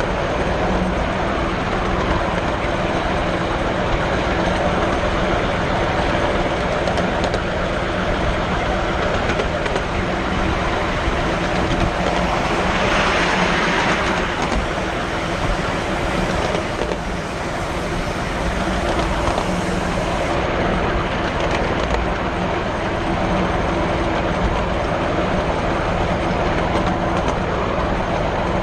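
Miniature railway train running along 7¼ inch gauge track, heard from one of its riding wagons: a steady rumble of wheels on rail with a constant hum underneath. A brief louder, brighter rush of noise comes about halfway through.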